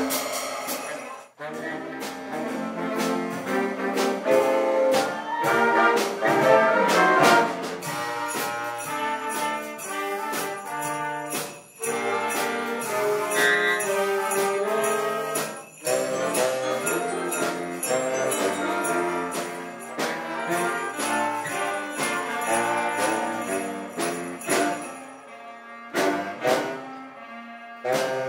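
School wind band playing together: brass, saxophones and clarinets over drums and cymbals, with jingle bells ringing through. The music dips briefly a few times.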